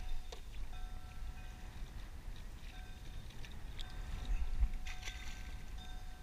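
Wind rumbling on the microphone, with faint clicks of fishing tackle being handled and a slightly louder rustle about four and a half seconds in.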